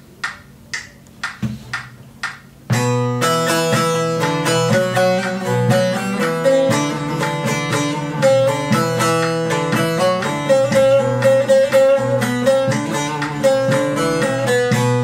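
A metronome clicks twice a second, at 120 beats a minute. About three seconds in, a bağlama (long-necked Turkish saz) starts playing a quick melody with a plectrum, at that tempo.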